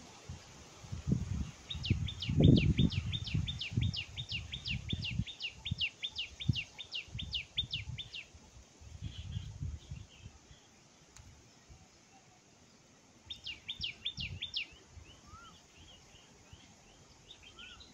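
A bird calling in a rapid run of high, downward-sliding chirps, about three a second, for some six seconds, then a shorter run later on. Low thumps and rumble sit under the first half, loudest about two and a half seconds in.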